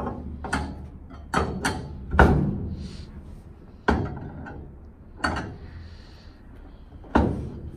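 Eight or so sharp knocks and thuds at uneven intervals, the loudest a little over two seconds in: a patient being settled on a chiropractic table and the table handled.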